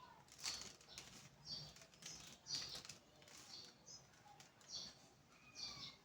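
Rubik's cube layers being turned by hand: faint, quick plastic swishes and clicks about once a second.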